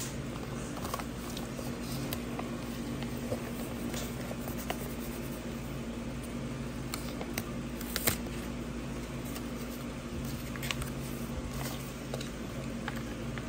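Sheets of taped paper being handled on a wooden table: scattered light rustles and taps, the sharpest about eight seconds in, over a steady low hum.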